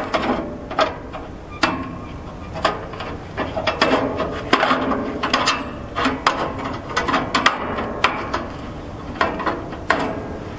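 Old band blade being worked off the wheels of a bandsaw sawmill with its tension released. It gives irregular clanks, knocks and clicks against the metal wheel case, with scraping and rubbing in between.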